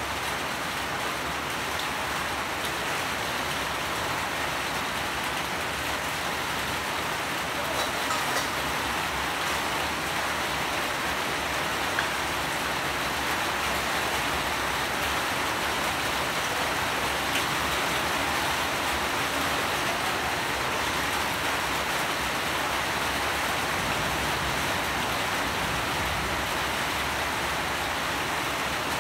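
Steady rainfall, an even hiss with a few brief drop ticks.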